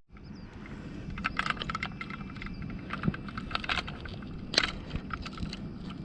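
Scattered light clicks and rattles of gear being handled in a kayak, over a steady low wind rumble on the microphone.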